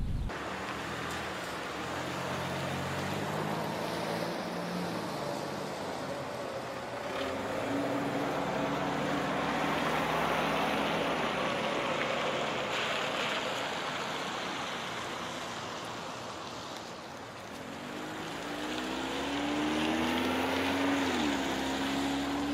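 Road traffic: motor vehicles passing along a street with a steady rush of tyre and engine noise that swells and fades as cars go by, and an engine rising in pitch as one accelerates near the end.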